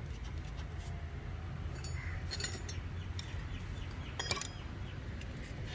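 A few light metallic clinks of hand tools against the brake caliper and its bolts, with a brief ring, over a steady low hum.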